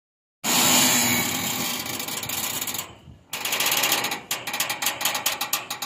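Loud steady mechanical noise for a couple of seconds, then, after a brief drop, a fast mechanical rattle of sharp clicks, several a second.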